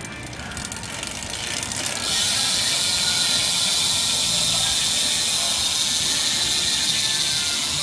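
A BMX bike's Salt rear cassette hub freewheeling as the rear wheel is spun: the pawls click so fast they blur into a steady, loud hiss-like buzz. The buzz comes in about two seconds in.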